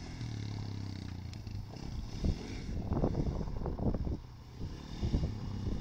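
Sport quad (ATV) engine running steadily at a low pitch as the quad rides along a dirt track. From about two to four seconds in, rough crackling and clattering join it as the tyres churn loose dirt and gravel.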